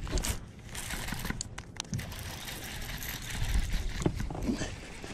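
Rustling handling noise with irregular sharp clicks as a hooked bass is reeled in on a bent baitcasting rod.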